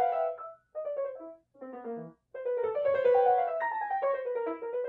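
Background piano music: short phrases with brief pauses between them for the first two seconds or so, then playing on without a break.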